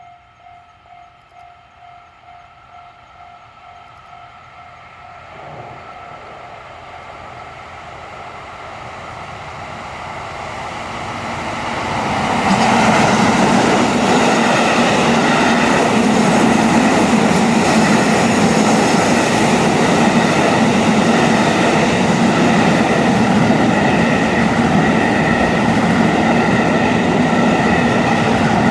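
A level-crossing alarm pulsing about twice a second, then a JR Central Kiya 97 series diesel long-rail transport train approaching and growing steadily louder. From about twelve seconds in it passes over the crossing, loud and steady, with the running of its wheels and engines.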